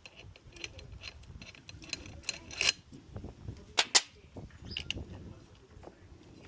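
Irregular clicks and knocks of tools and plastic parts being handled while a pressure washer is dismantled, with a few louder knocks around the middle.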